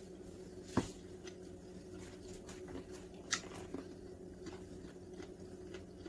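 Someone chewing a bite of rice paper wrap: scattered soft clicks and smacks, the sharpest about a second in and another a little past three seconds, over a faint steady hum.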